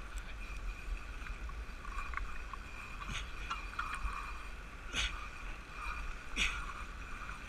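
Sea washing against the rocks of a jetty, with a few louder splashes about three, five and six and a half seconds in.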